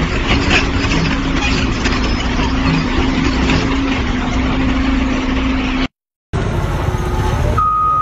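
Heavy diesel machinery running at a rock-loading site, a steady engine drone with some brief rock clatter. After a short cut, a mining dump truck's engine, with a reversing beeper starting near the end.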